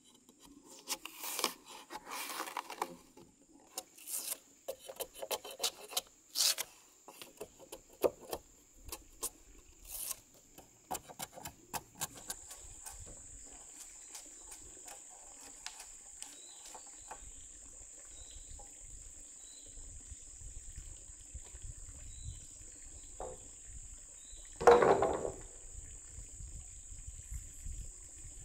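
Insects shrilling steadily in one high, constant tone that grows stronger about halfway through. Scattered scraping and clicking of wood work come in the first half, and a single loud wooden knock sounds near the end.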